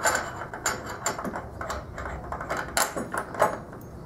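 A Powertec workbench caster being fitted into its metal mounting bracket: a run of light, irregular clicks and knocks of metal parts handled.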